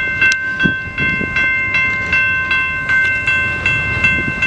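Railroad crossing bell, a General Signals type 2, ringing steadily at about two and a half strokes a second, each stroke sounding the same bright ringing tones. It keeps ringing because a stopped train occupies the crossing circuit.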